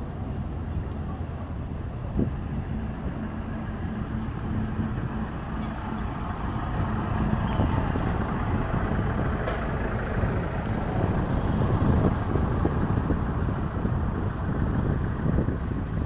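Diesel engines of road rollers running, a steady low rumble that grows louder in the second half.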